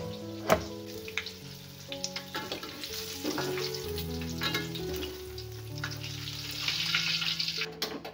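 A knife strikes a plastic cutting board a couple of times in the first second, then hot oil sizzles steadily as tofu fries in a wok. The sizzle grows louder near the end, over soft background music.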